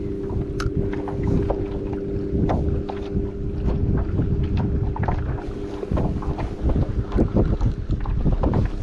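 Wind buffeting the microphone, with water slapping and knocking against a kayak hull. A steady low hum runs underneath and fades out about six seconds in.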